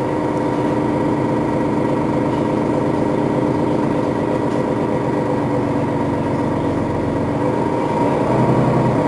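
Setra S415 NF city bus's diesel engine running steadily. A deeper, louder note comes in about eight seconds in.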